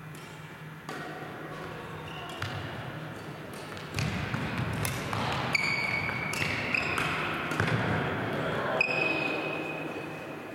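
Badminton rally on a wooden sports-hall court: sharp racket-on-shuttlecock hits about once a second, with short high squeaks of shoes on the floor. The play gets louder about four seconds in.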